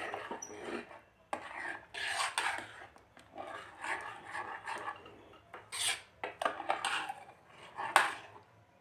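Metal spoon stirring and scraping thick, mashed lentil dal against the inside of a pressure cooker, in irregular strokes with a sharper knock of the spoon near the end.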